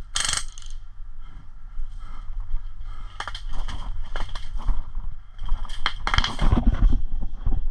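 Footsteps crunching and rustling through dry ground cover, irregular and denser in the second half, over a steady low rumble.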